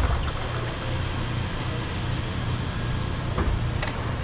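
A steady low mechanical rumble, like an engine running, at an even level throughout.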